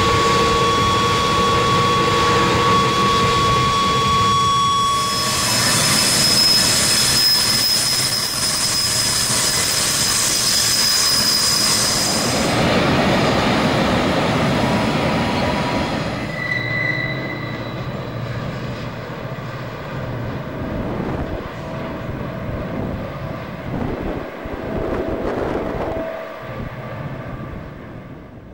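Freight cars rolling past on a curve, wheels rumbling on the rails with thin steady flange squeal. A louder high-pitched wheel squeal runs from about five to twelve seconds in. The passing train grows quieter in the second half.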